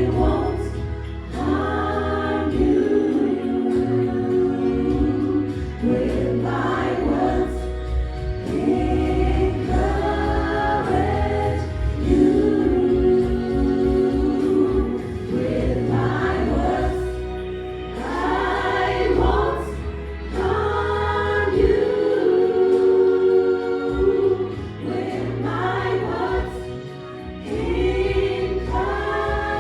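Gospel choir singing in harmony over a steady bass accompaniment.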